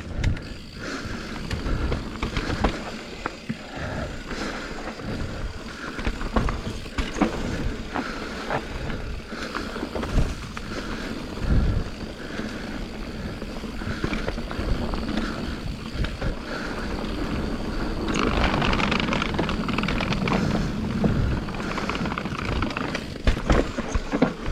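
Mountain bike riding down a trail: tyres running over dirt and rock, with frequent knocks and rattles from the bike over bumps. The noise grows louder and rougher about three quarters of the way through.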